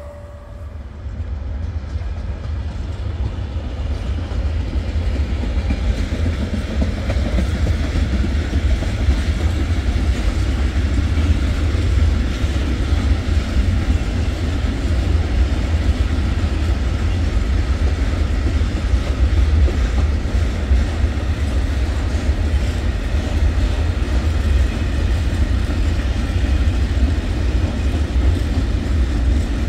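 A train passing on the track behind a class 193 Siemens Vectron electric locomotive: a loud, deep rolling rumble with rail noise that builds over the first several seconds and then holds steady.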